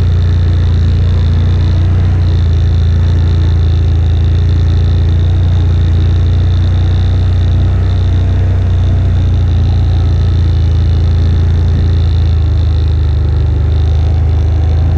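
AODES 1000 ATV's V-twin engine running at a steady speed while riding, a deep even drone with a thin high tone above it and no revving.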